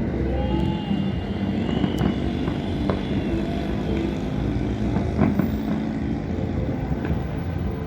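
Fireworks going off at a distance, their booms blending into a continuous thunder-like rumble, with a few sharper bangs standing out about two, three, five and seven seconds in.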